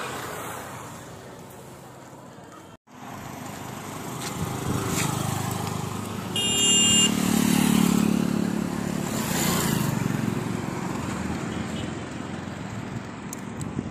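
Road traffic: motor vehicles passing on the road, one engine growing loudest and rushing past about seven to ten seconds in. A short high-pitched beep sounds just before it.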